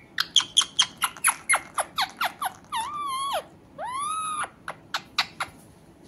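Pet green parakeet calling: a fast run of about a dozen short, sharp squawks at roughly five a second, then two longer drawn-out calls, then a few more short squawks near the end.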